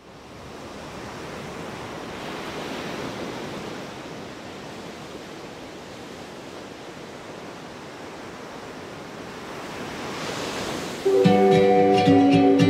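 Surf washing onto a sandy beach, swelling and ebbing in slow waves. About eleven seconds in, plucked-string music starts suddenly and is much louder than the surf.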